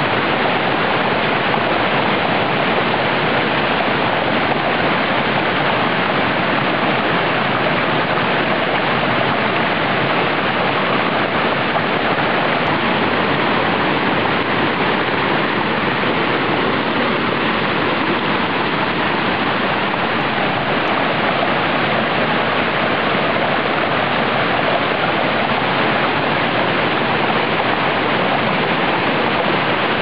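Small waterfall on a woodland brook, cascading over boulders in a steady rush of water. The brook is running a little higher than its usual gentle trickle after heavy rain.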